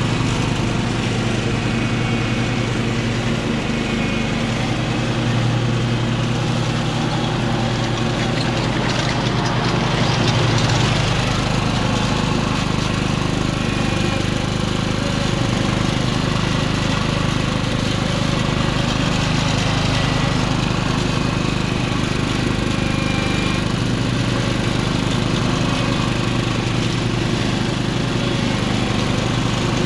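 Husqvarna Rider ride-on mower's engine running steadily while it mows tall, rough grass and weeds.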